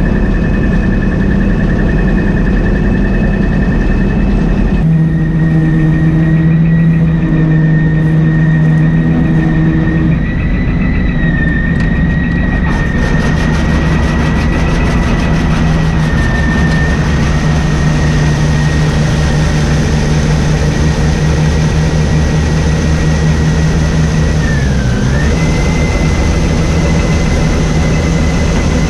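Combine harvester running steadily under load with a high whine over the engine. The sound shifts abruptly twice, once about five seconds in and again near thirteen seconds.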